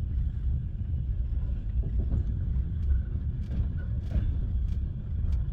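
Low, steady rumble of the train, with a few faint clicks and knocks.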